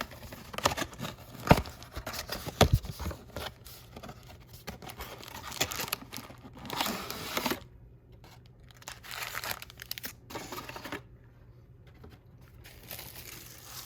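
Plastic shrink wrap being torn off a trading-card box and crinkled, with a few sharp knocks as the box is handled and opened. It quiets down around eight seconds in and again shortly before the end.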